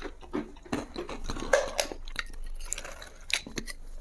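A small potato-snack can being handled and opened by hand: irregular small clicks, taps and scrapes from its lid, with some crunchy chewing mixed in.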